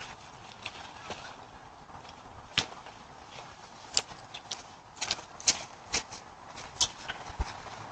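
Irregular sharp clicks and knocks over a faint steady hiss, recorded through a doorbell camera's microphone; they come singly and in a quick cluster about five seconds in.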